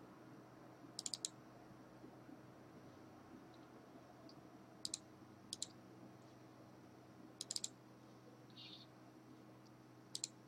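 Faint clicking at a computer: a few short clusters of quick clicks spread through the quiet, over a low steady hum.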